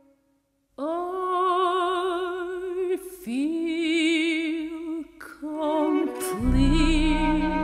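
A female opera singer holding long notes with wide vibrato, in three phrases broken by short breaths. About six seconds in, a low sustained accompaniment comes in underneath the voice.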